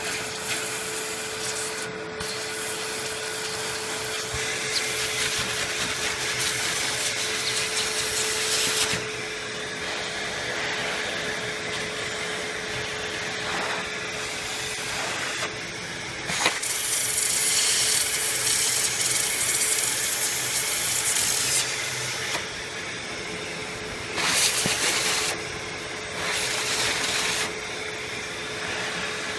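Household vacuum cleaner running with a steady hum, its nozzle worked over a laptop's fan vents to suck out dust. The rushing hiss of air swells and drops as the nozzle moves over the vents, loudest for several seconds around the middle.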